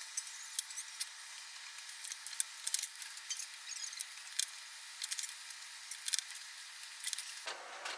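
Light, scattered clicks and taps of small parts being handled: a steel ball bearing, a small metal square and a wooden block picked up, held and set down on a cutting mat, over a faint hiss.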